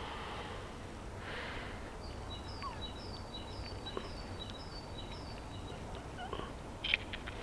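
A small bird calling outdoors: a run of about eight short, high repeated notes, roughly two a second, over a steady background hiss. A brief rushing noise comes about a second in, and a few sharp clicks near the end.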